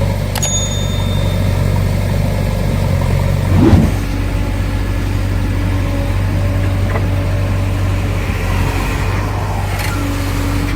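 Heavy diesel engine of a tractor or backhoe loader running steadily, with a brief louder surge about four seconds in.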